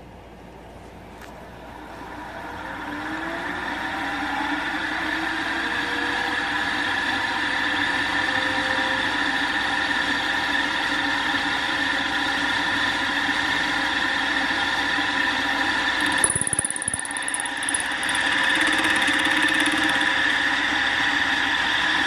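Milling machine spindle spinning a fly cutter at high speed. Its whine rises as it spins up about two seconds in, then runs steady. About sixteen seconds in the note changes and grows a little louder as the cutter starts face-cutting a 1-inch square aluminum block.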